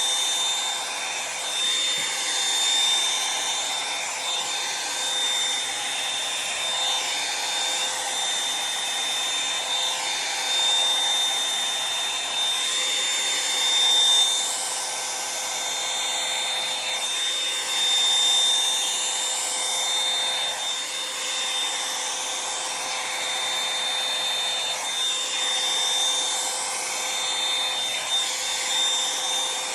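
Revlon One-Step hair dryer brush running steadily with a high whine over rushing air. The air sound shifts in repeated sweeps every few seconds as the brush is worked through hair.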